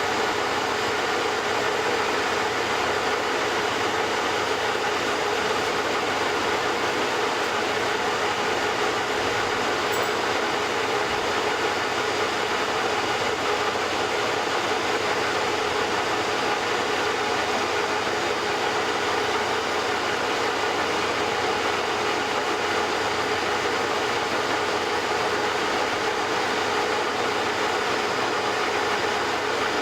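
Metal lathe running and turning a die part: an even, unchanging machine noise with a constant mid-pitched hum.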